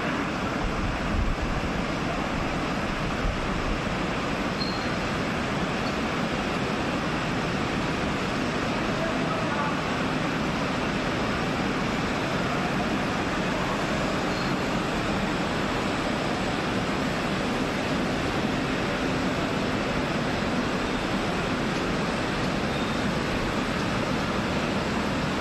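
Rubber hose extrusion production lines running: a steady, even machine noise with a faint low hum.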